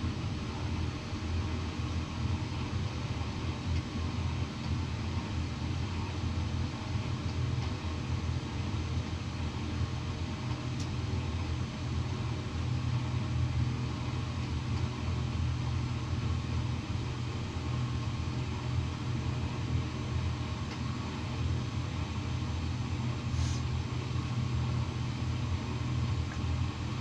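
A steady low mechanical rumble, like a motor running, with a faint click or two near the end.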